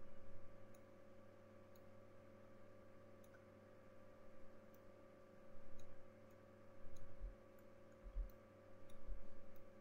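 Faint scattered clicking from working at a computer desk, over a steady electrical hum, with several dull low thumps, the strongest near the end.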